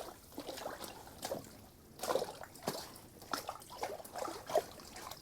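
Water trickling and splashing at an ice-fishing hole as a hooked fish is landed, in small irregular splashes and drips.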